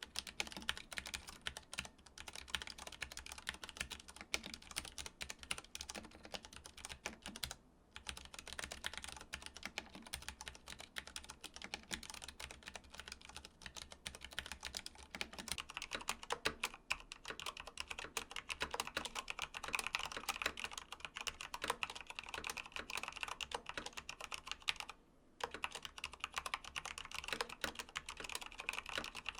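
Continuous fast typing on a mechanical keyboard, a dense run of key clicks with brief pauses about 8 seconds and 25 seconds in.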